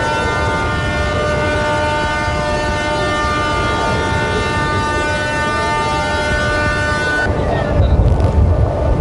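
Ship's horn sounding one long, steady blast that cuts off about seven seconds in, over a low rumble of wind; after it stops, wind buffets the microphone.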